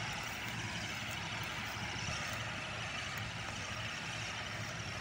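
Combine harvester working, its engine and threshing gear making a steady drone with no change in pitch.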